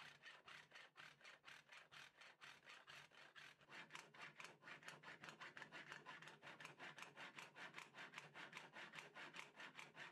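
A metal file clamped to a radiused sanding block, stroked back and forth over the frets of a guitar neck to level their tops: a faint, rhythmic scraping of about four strokes a second.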